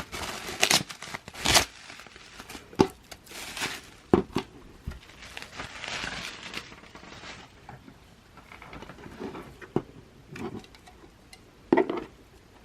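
Packaging of a DVD box set being unwrapped and handled: plastic wrap crinkling with sharp clicks and taps, busiest in the first few seconds, then softer rustling and occasional taps.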